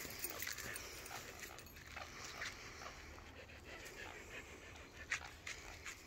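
A dog panting faintly.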